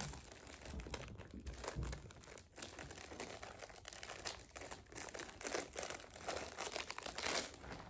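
Packaging crinkling and rustling in irregular crackles as it is handled.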